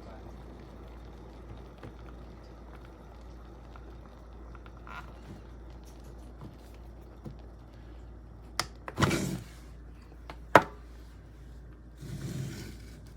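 Handling noises around a small collapsible silicone electric kettle: a few sharp clicks and knocks, the loudest about ten and a half seconds in, and two short rustling bursts, over a faint steady hiss.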